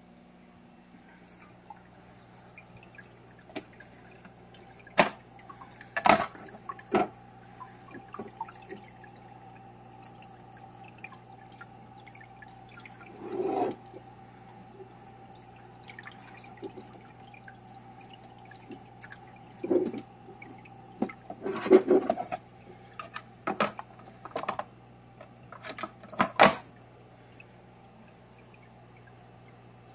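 Tidal 75 hang-on-back aquarium filter running with a steady hum and water trickling from its outflow, broken by irregular sharp drips, splashes and plastic knocks, a handful of them loud, as the filter box and media are handled.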